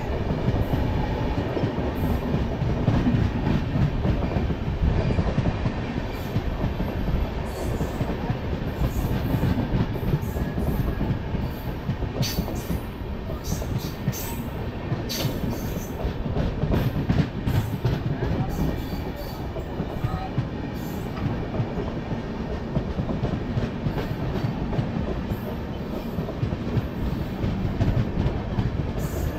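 Coaches of a long-distance express train rolling past at close range on the adjacent track: a steady rumble with wheels clattering over the rail joints.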